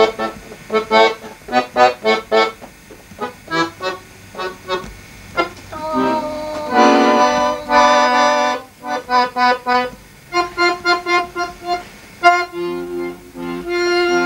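Guerrini chromatic button accordion being played: strings of short, detached notes, a couple of held chords around the middle, then more short notes over held low notes near the end.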